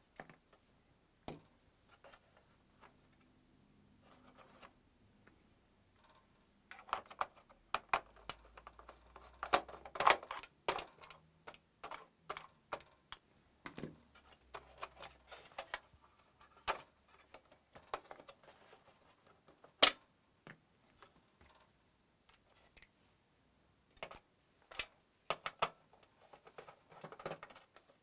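Irregular small clicks, taps and scrapes of a hand screwdriver and of the plastic and sheet-metal parts of a PlayStation 4 being handled as its disc drive is unscrewed and its ribbon cables are unplugged. Sparse at first, busier after a quarter of the way in.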